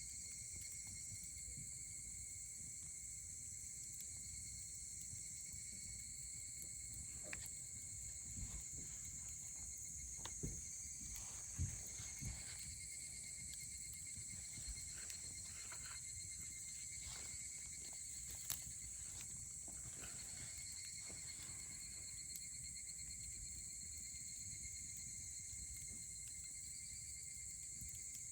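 Wood fire crackling, with scattered sharp pops through the middle, over a steady high insect trill.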